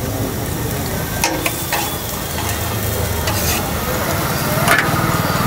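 Metal spatula scraping and spreading potato masala over a dosa on a hot flat iron griddle, with the dosa sizzling steadily underneath. Several sharp scrapes of the spatula on the griddle stand out.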